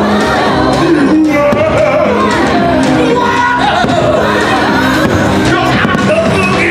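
Fireworks show soundtrack: loud music with a sung melody over sustained notes, heard in the open air.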